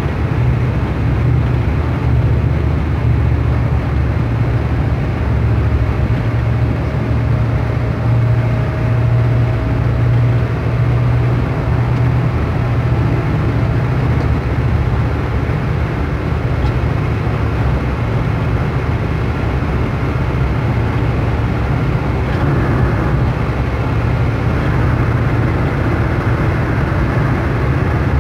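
Steady drone of a car travelling at highway speed, heard from inside the cabin: a low engine hum under tyre and wind noise.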